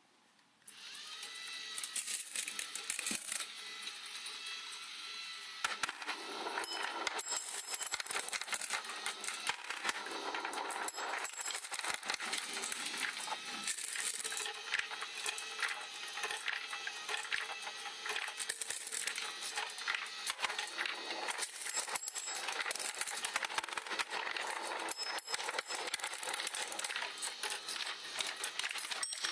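A powered marble run starts up about a second in: its lift motor whirs while many marbles click and rattle along the tracks and drops. The clatter gets busier about six seconds in.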